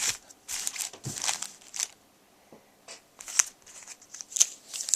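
Trading-card pack wrappers crinkling and cards being handled, in short irregular bursts with a brief quiet pause about two seconds in.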